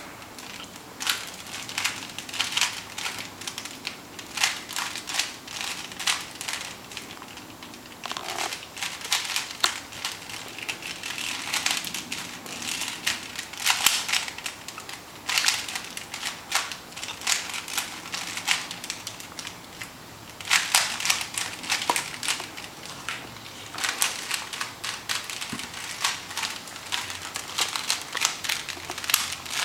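A Rubik's Cube being turned fast by hand during a timed solve: irregular plastic clicking and clacking of the layers, in quick runs broken by short pauses.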